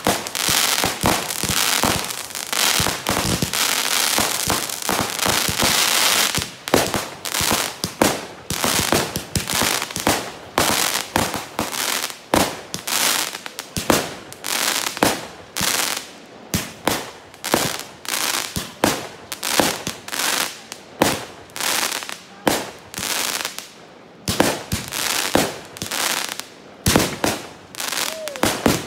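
Fireworks going off: a dense, continuous crackling for about the first six seconds, then a long run of separate sharp bangs, two or three a second, with crackle between them.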